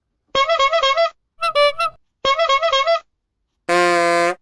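A Christmas gonk toy honking in four short bursts of reedy tone. The first and third bursts are quick wavering runs of notes and the second is choppy. The last is a lower, steady, buzzy honk held for most of a second.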